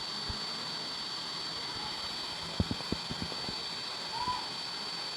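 Powered-on DJI Mavic Pro drone on the bench with its internal cooling fan running: a steady hiss with a thin high whine. A few light clicks of handling come about two and a half to three and a half seconds in.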